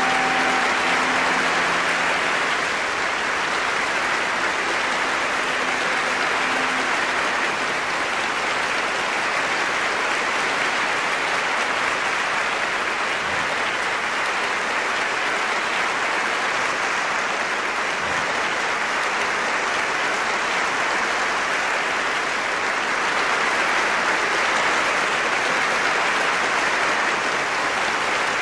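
A large audience applauding, a long steady ovation of many hands clapping.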